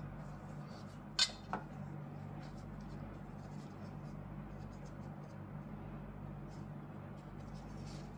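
Faint rustling and light scratching of gloved hands handling thin shortcrust dough strips and fitting them into perforated metal tart rings, over a steady low hum. Two sharp clicks about a second in, less than half a second apart, the first the louder.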